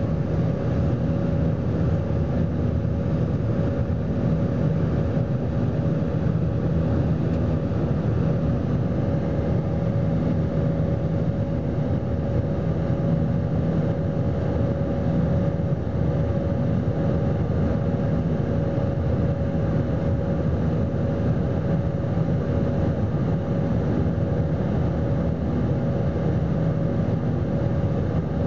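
Airbus A319 passenger cabin during the climb after takeoff: the jet engines and airflow make a steady low rumble with a constant hum on top, unchanging throughout.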